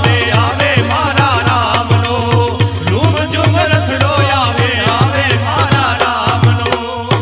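Gujarati devotional bhajan music: a wavering melody line over a steady low drone, with regular drum strokes and rattling percussion keeping a brisk beat. It begins to fade out right at the end.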